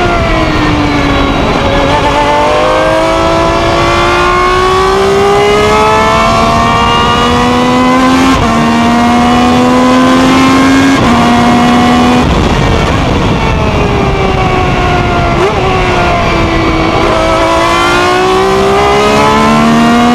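Ferrari 333 SP's V12 racing engine at full throttle, heard onboard: it slows at first, then pulls up through the revs with quick upshifts about 8 and 11 seconds in. It eases off and drops in pitch with a short throttle blip on a downshift about 15 seconds in, then accelerates hard again near the end.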